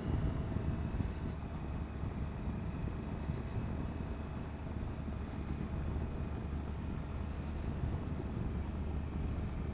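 Steady wind rush on a helmet-mounted camera over the low, even drone of a Triumph Tiger XRx's three-cylinder engine as the motorcycle rides along.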